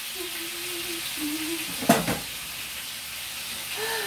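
Chips frying in hot oil on high heat: a steady sizzle, with a sharp metal clank about two seconds in.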